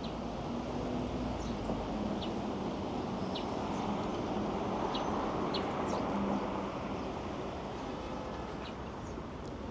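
Steady outdoor hum of city traffic, swelling a little and then easing, with a few faint short bird chirps.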